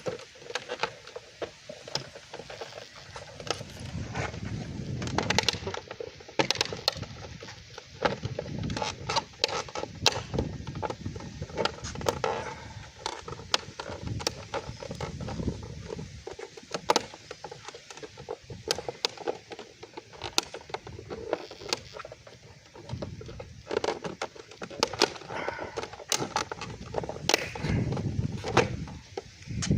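Hard plastic mirror-housing parts being handled and pushed into place: many irregular clicks, taps and scrapes as the pieces and clips are worked together, with low rubbing and handling noise.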